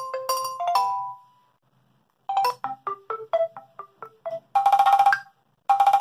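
Stock ringtone previews played through a Nokia 8110 4G's small loudspeaker. Each tune is cut short as the next tone in the list is selected: a few mallet-like notes that stop about a second in, then a quick run of about eight plucked notes, then two short, dense, buzzy bursts of rapid notes near the end.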